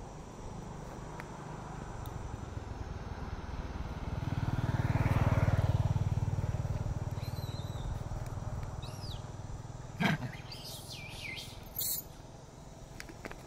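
A motor vehicle passes by, its engine rising to a peak about five seconds in and then fading away. In the last few seconds come a few short, sharp, high-pitched squeaks.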